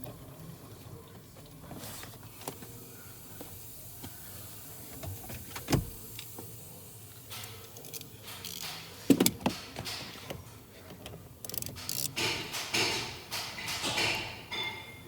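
Hand tools and metal parts clinking and scraping as a mounting bolt is fitted and tightened on a car's steering column assembly. There is a sharp knock about six seconds in and another about nine seconds in, then a run of rapid clicks and scraping near the end.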